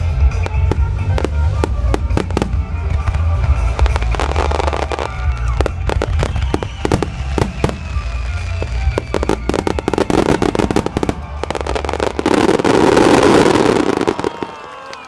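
Aerial fireworks bursting in rapid succession over a music soundtrack with a strong bass. The bangs build to a dense, louder stretch about twelve seconds in, then stop suddenly near the end.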